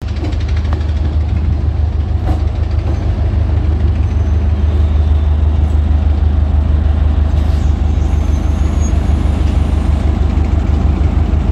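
ICF-built diesel multiple unit (DEMU) train's diesel engine idling, a steady low drone.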